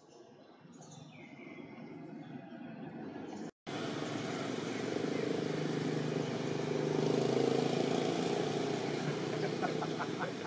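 A few short bird chirps in the first seconds. After an abrupt cut comes a louder steady low rumble of background traffic with indistinct voices in it.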